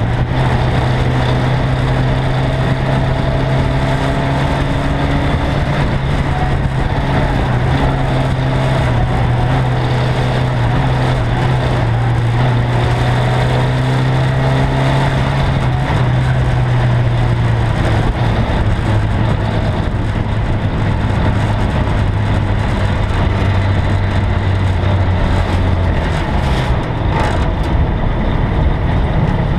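Ministox race car's engine heard close up from a camera mounted on the car, running hard at steady revs through the laps. Its note drops lower a little over halfway through and picks up again near the end.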